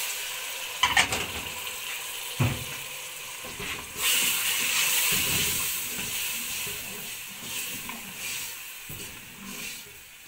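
Water poured into a pot of frying onion-tomato masala, hissing and sizzling as it hits the hot oil, the sizzle swelling about four seconds in. A spoon stirs and scrapes the pot, with a few knocks against its side.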